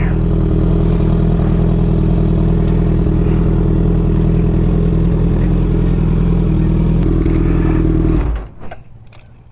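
Fuel-injected Harley-Davidson Sportster 883's air-cooled V-twin running steadily at low revs while parking, then shut off about eight seconds in, leaving a few faint clicks.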